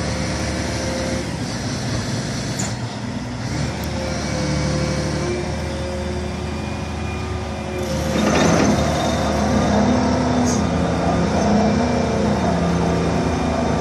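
Doosan DX420 excavator running, its diesel engine and hydraulics working as the tunneling boom and arm move, with a steady humming drone; about eight seconds in the sound surges and stays louder with a new steady hum.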